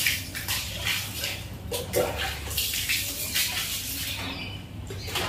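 Water splashing on a flooded floor as it is scooped into a bucket and pushed along, in a series of short splashes.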